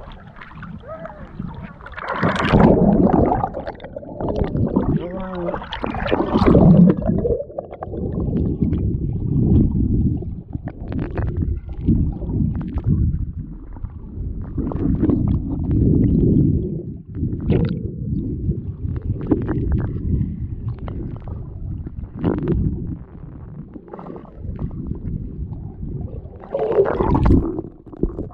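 Muffled gurgling and rushing of river water, heard with the camera held under the surface. It comes in uneven surges, with scattered small knocks and bubbling.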